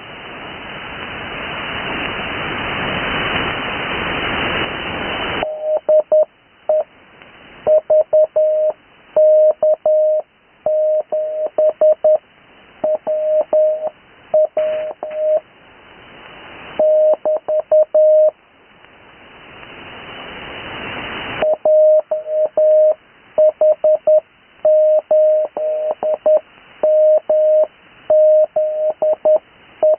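Morse code (CW) on the 80 m amateur band heard through a radio receiver: a single tone of about 600 Hz keyed on and off in dots and dashes. Where no signal is keyed, during the first five seconds and again about two-thirds of the way in, band hiss rises steadily in its place.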